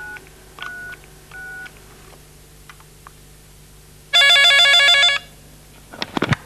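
Three short telephone keypad dialling tones, then a single loud electronic ring of a desk telephone about four seconds in, lasting about a second. Near the end there are a few sharp clicks as the handset is picked up.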